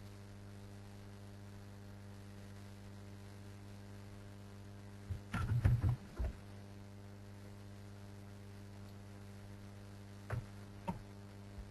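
Steady electrical mains hum on an open microphone line. A short burst of muffled knocks comes about five seconds in, and two faint clicks follow near the end.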